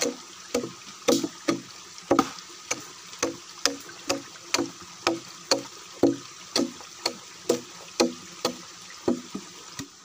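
A hand-held chopping tool is striking fresh wood, hollowing out the inside of a log for a log-drum beehive. It keeps up a steady rhythm of about two blows a second, each a sharp knock with a short ringing tail.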